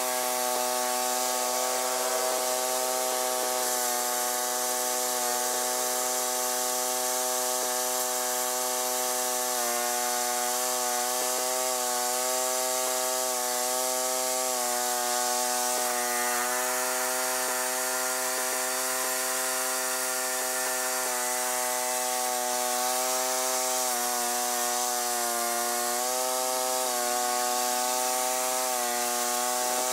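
Allis-Chalmers 410 garden tractor engine running steadily under load while driving a rear-mounted rototiller through soil. Its pitch sags slightly a few times as the load changes.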